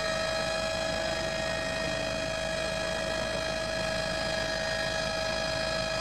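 Helicopter running steadily, heard from on board: a constant whine over a low rumble.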